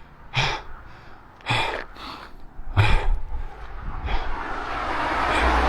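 A hiker's heavy, rhythmic breathing, about one breath every second or so, while he climbs under a heavy pack at over 4,400 m altitude. Near the end a rising rush with a low rumble swells up, a vehicle approaching on the road.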